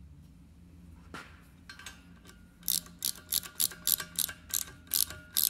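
Ratcheting wrench clicking back and forth in quick strokes, about three clicks a second from about two and a half seconds in, as it snugs a small Teflon-pasted bulkhead fitting into a freshly tapped hole in a cast axle housing.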